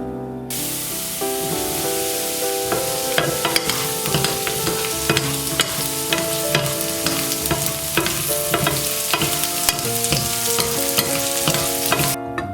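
Food sizzling as it fries in hot oil in a pan, stirred with a utensil that clicks and scrapes against the pan again and again. The sizzle starts about half a second in and stops just before the end.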